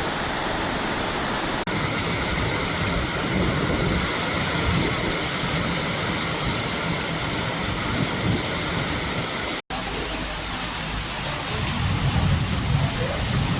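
Heavy rain pouring steadily in strong, gusting wind, a dense wash of noise with a low rumble underneath. The sound drops out for an instant near ten seconds in, then the rain carries on with a brighter hiss.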